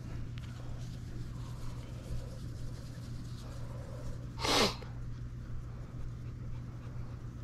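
One short, sharp sneeze about four and a half seconds in, over a steady low hum.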